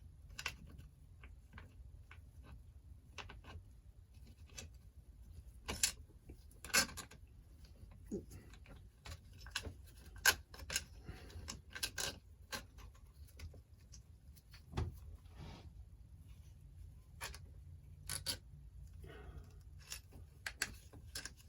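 Light, irregular clicks and taps of small carburetor parts being handled and fitted back together by hand.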